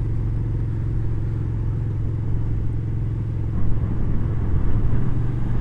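Suzuki SV650S's 645 cc V-twin engine running steadily while the motorcycle is ridden along the road, growing a little louder about four seconds in.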